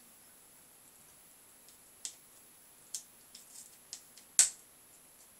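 A few light clicks and taps of a soldering iron tip being worked against component pins on a circuit board during desoldering, with one much louder click near the end.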